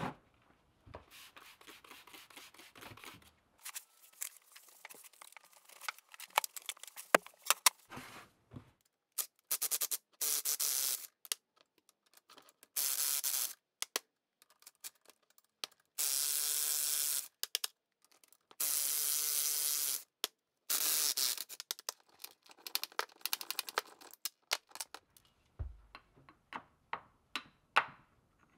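Workshop sounds of a cast-iron screw hoist being taken apart on a steel plate: scattered metal clinks and taps of tools and parts, and several hissing bursts a second or two long. Near the end comes a dull blow, then quicker taps from a soft-faced mallet.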